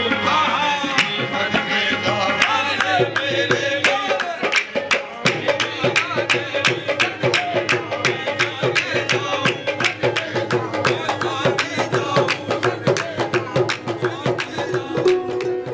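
Live qawwali: a harmonium with a lead singer and chorus, carried by steady rhythmic hand clapping and percussion.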